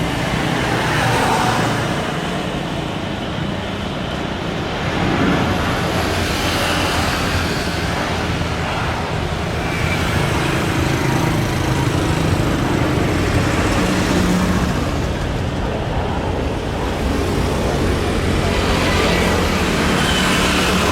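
A steady outdoor rumble like road traffic, with a hiss that swells and fades gently.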